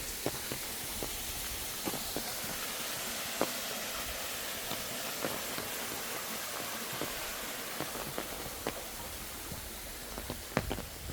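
Footsteps of a person walking a forest trail, irregular light steps over a steady high hiss.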